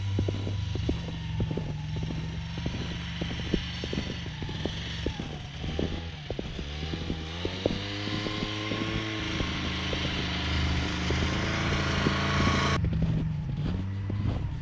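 Snowmobile engine running under way, its pitch rising about halfway through as it speeds up, with many short knocks and rattles from the ride over the snow.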